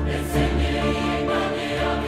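Mixed choir of men's and women's voices singing sustained notes in harmony, with a deep, steady bass underneath.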